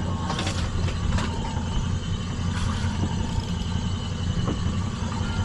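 Boat's outboard motor idling with a steady low drone, with a few short knocks over it.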